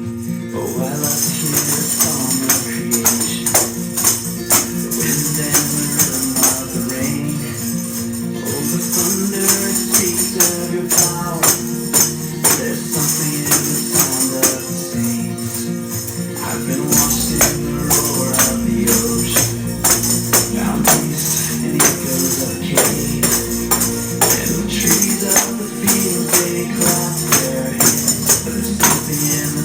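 A Christian rock song playing with tambourines jingling and striking on the beat, starting about a second in. A heavier bass comes in a little past halfway.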